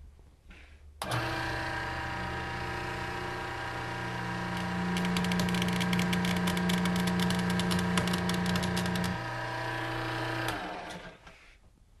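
Hydraulic baler-belt tear-test machine running: a steady motor-and-pump hum starts abruptly about a second in and grows louder midway. A rapid crackle runs for several seconds as the hydraulic cylinder pulls apart and tears a New Holland mini rough top baler belt sample. Part of the hum drops away shortly before the whole machine shuts off, about a second and a half before the end.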